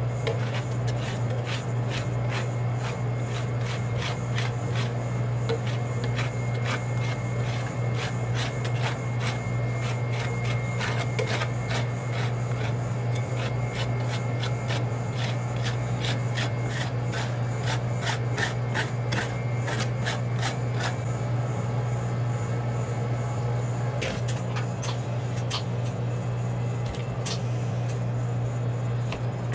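Metal spatulas chopping and scraping on a rolled-ice-cream freezing plate: quick, regular taps about two to three a second, thinning out after about twenty seconds, over a steady low hum.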